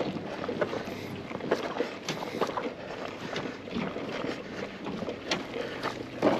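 Footsteps on a floating pontoon with carried fishing rods and gear knocking and clicking, irregular short knocks over a steady hiss.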